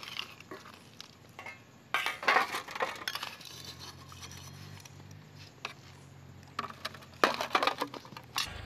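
Steel spoon clinking and scraping against steel bowls as boiled eggs are scooped out of water and set into a second steel bowl. The clinking comes in two bunches, about two seconds in and near the end.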